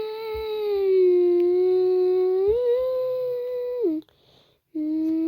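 A voice humming long held notes. The first note steps up in pitch about two and a half seconds in and slides down as it ends. After a short break another held note begins near the end.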